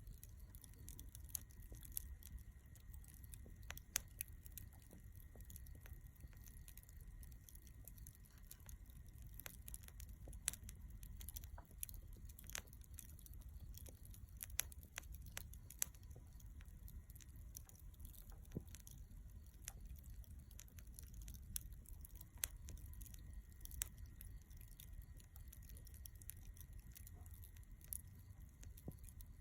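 Lump charcoal burning in a shichirin clay grill, crackling with irregular sharp pops and ticks over a faint low rumble.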